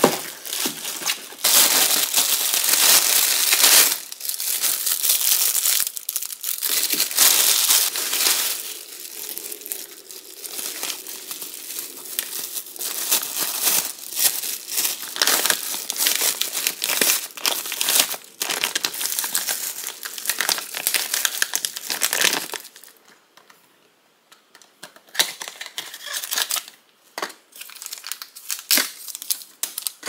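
Plastic food bags being handled and crinkled, a dense rustling for most of the stretch. Near the end it stops briefly, then gives way to scattered lighter crinkles and taps as a cardboard seasoning box and its paper sachets are handled.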